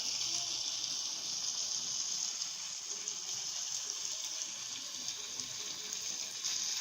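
Mutton roast masala frying in oil in a kadai on a low flame, with a steady sizzling hiss.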